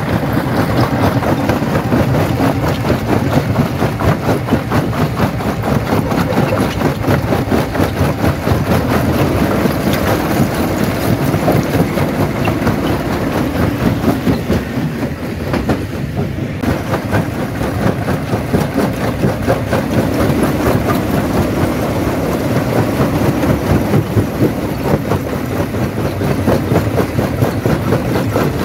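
Stone jaw crusher running, with a continuous low rumble and a dense, rapid clatter of rock being broken and tumbling through it.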